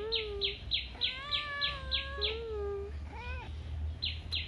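Kitten meowing four times; the second meow, about a second in, is the longest and highest, and the last is short. A bird keeps up quick high falling chirps, about three a second, pausing near the end.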